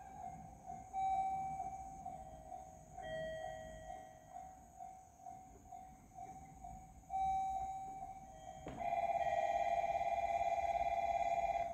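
Railway warning bells ringing in a steady repeating rhythm of about two strokes a second, at two slightly different pitches. About nine seconds in, a louder, steady, fast-pulsing warning tone joins them.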